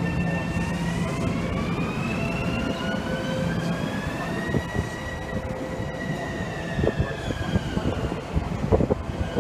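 Long Island Rail Road train pulling out of the station: a whine of several tones rises in pitch over the first five seconds as it picks up speed, then levels off and dips slightly. Near the end, knocks of the wheels passing over rail joints sound through the running noise.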